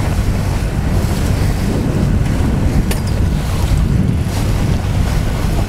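Strong wind buffeting the microphone over choppy water, a steady loud rush with a short tick about three seconds in.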